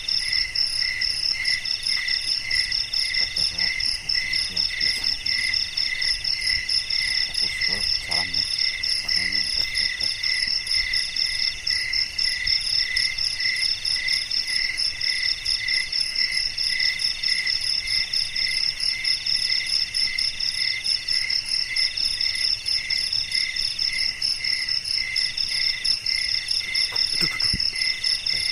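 A chorus of night insects, several trilling at once at different pitches in fast, even pulses, one of them in bursts of about a second with short gaps.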